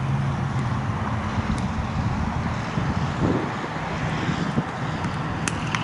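Wind buffeting the microphone over a steady rumble of distant traffic. There is one sharp click about five and a half seconds in.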